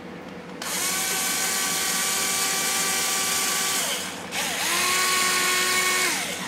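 Small cordless drill with a 1/16-inch bit drilling a pilot hole for a small screw, in two runs. The motor whine spins up about half a second in, runs steadily for about three seconds and winds down. It then spins up again, runs for nearly two seconds and winds down near the end.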